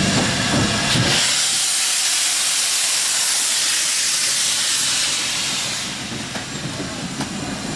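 GWR King class steam locomotive No. 6023 "King Edward II" blowing steam from its cylinder drain cocks: a loud, steady hiss that eases off about six seconds in.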